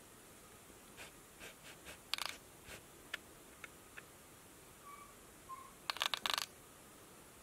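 Domestic cat giving a few faint, short chirps at a bird on a laptop screen, among scattered sharp clicks and taps, with a rapid run of clicks about six seconds in.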